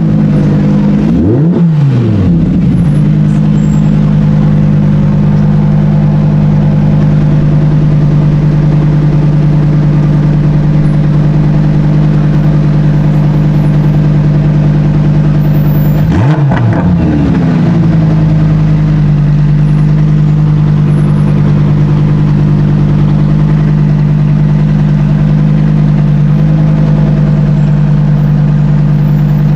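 A car engine running steadily close by, a loud low drone. Its pitch swoops briefly and settles back twice, about a second and a half in and again about halfway through.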